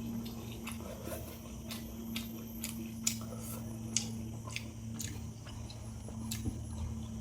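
A person chewing food close to the microphone, with irregular sharp mouth clicks and smacks, over a steady low hum.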